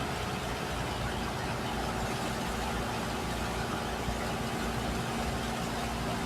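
Steady machinery drone from a high-pressure water-jet setup: a constant low hum with a hiss of spray over it, unchanging throughout.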